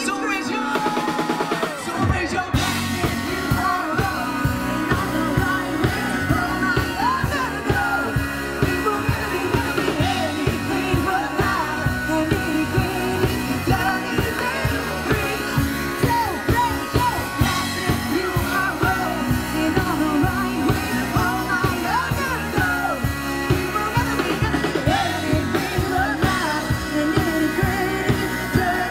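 Live pop-rock band playing, with singing over electric guitar, bass, keyboard and a drum kit. The drums and bass come in about two seconds in and keep a steady beat.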